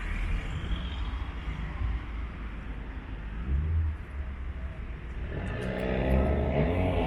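A car's engine running under a low steady rumble. About two thirds of the way in it starts accelerating, its pitch rising and the sound growing louder.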